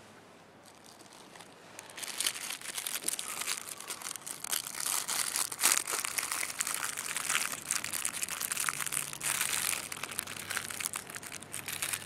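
Plastic wrapper of a pack of crackers crinkling and crackling as it is torn open and handled, starting about two seconds in.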